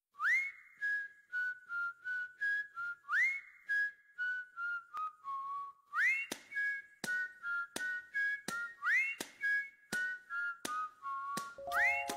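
A whistled tune as background music: each phrase opens with a quick upward glide and then steps down through a few held notes, repeating about every three seconds. From about six seconds in, sharp clicks keep time with it, and a lower instrument joins near the end.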